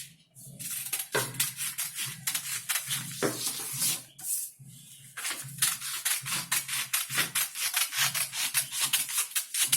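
Scissors cutting through soft voile fabric in quick repeated snips, with a short pause about four seconds in.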